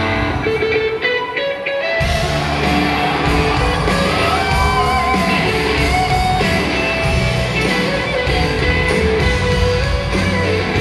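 Live band playing a song intro with electric guitars: a few sparse notes, then about two seconds in the full band with bass and drums comes in.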